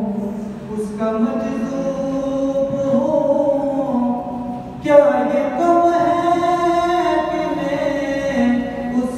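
A man reciting a naat unaccompanied, singing long, drawn-out melodic phrases with no instruments; a louder new phrase begins about five seconds in.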